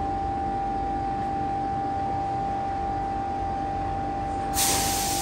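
Electric double-deck passenger train standing at an underground platform, its onboard equipment giving a steady hum with a constant high-pitched whine over a low rumble. Near the end a sudden loud hiss cuts in.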